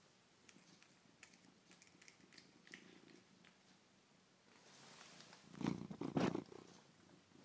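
A cat eating egg from a plastic bowl, with faint wet smacking and clicking of its mouth. About five seconds in there is a louder, brief low rumble.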